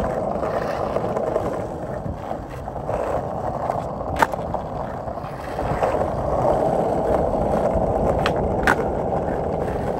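Skateboard wheels rolling steadily on rough asphalt. A sharp clack about four seconds in as the board lands a flip trick, and two more clacks near the end.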